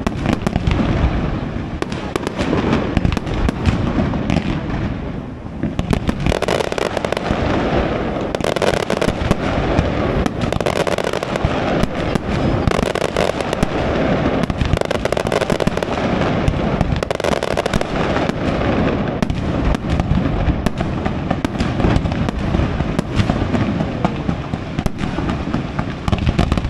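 Aerial fireworks display: a dense, continuous barrage of shell bursts and crackling, growing thicker with crackle about six seconds in.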